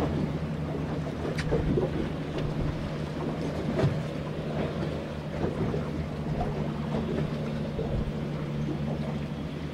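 Boat engine running steadily with a low hum, under wind and water noise, with a few light knocks.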